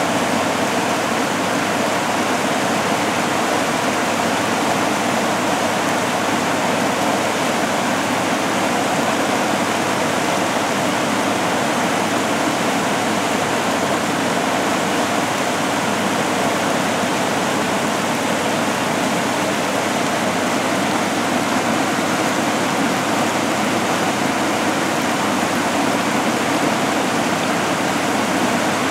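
Muddy floodwater pouring over a submerged bridge and churning into white rapids below: a steady, loud rush of water that does not let up.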